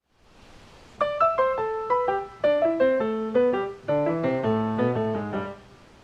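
Background music: a bright piano or electric-keyboard melody of quick single notes, starting about a second in and fading out near the end.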